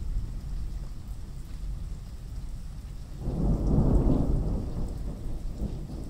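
Thunderstorm: rain and a steady low rumble, with a roll of thunder swelling about three seconds in and dying away over the next two seconds.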